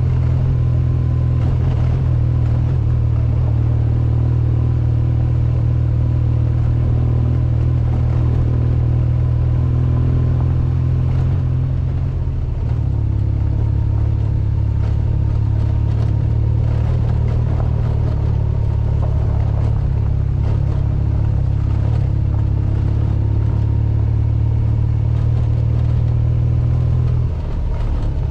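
BMW R1200GS boxer-twin engine running steadily as the motorcycle rides along a gravel track, with a rush of wind and small rattles. The engine note drops briefly near the end.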